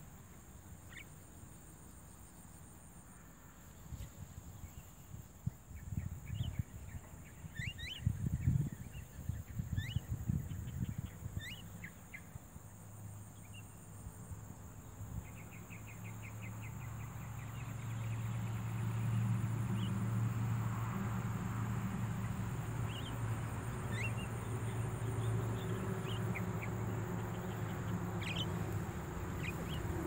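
Javan mynas give scattered short, rising chirps, with rustling in dry rice straw loudest about 4 to 11 seconds in. A brief rapid trill comes about 15 seconds in. From about 16 seconds a low steady rumble builds underneath.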